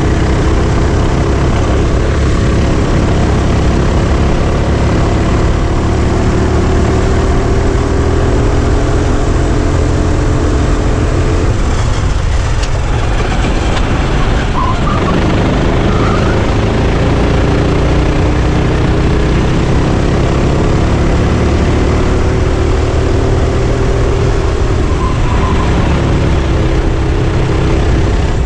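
Sodi RT8 rental go-kart's single-cylinder four-stroke engine at racing speed, heard onboard. Its pitch climbs steadily along a straight, drops away about twelve seconds in as the kart slows for a corner, then climbs again and falls once more near the end, over heavy low wind rumble on the microphone.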